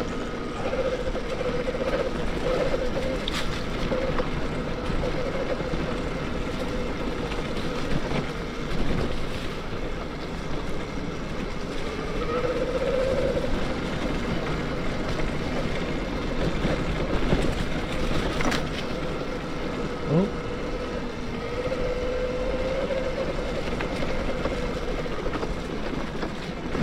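72V Bafang BBSHD mid-drive e-bike motor whining steadily under way, its pitch drifting a little with speed, over a steady rush of wind and tyre noise.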